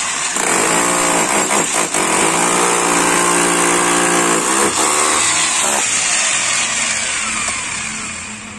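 Electric demolition hammer with a pointed chisel bit chipping into a concrete wall: a loud, steady hammering buzz that eases off near the end.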